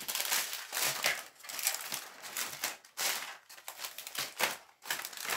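Small plastic bags of diamond-painting rhinestones crinkling as they are handled and shifted on a table, an irregular run of crackles.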